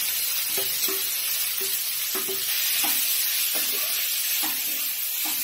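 Cooked, drained mustard greens (sarson saag) sizzling hard in hot mustard oil with chillies and garlic in a kadhai, with a spatula stirring through them about once a second.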